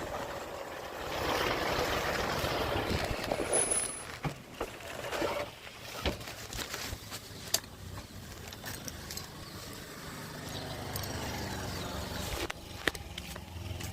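Honda XR250 Tornado's single-cylinder four-stroke engine running low and steady through a PowerCore 4 exhaust, with a rush of noise in the first few seconds and scattered clicks and knocks.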